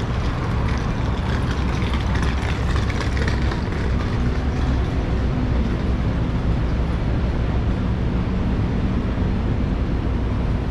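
City street traffic: a steady low rumble of vehicles running on the road, with a steady engine hum coming in about four seconds in.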